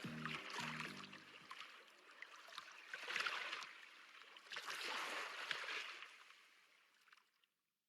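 Water rushing and splashing, swelling twice, while the last notes of music die away in the first second and a half. The water fades out near the end.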